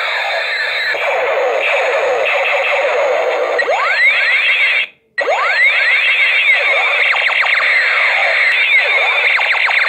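Battery-powered toy space gun making its electronic laser sound effects: fast, overlapping falling and rising zaps that run on continuously, cutting out for a moment about halfway through before starting again.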